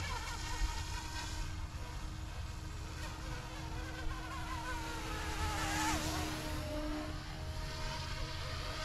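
Small electric RC helicopter in flight: the brushless main-rotor motor and tail motor give a thin, buzzing whine that wavers up and down in pitch as it manoeuvres. The pitch dips sharply and recovers about six seconds in.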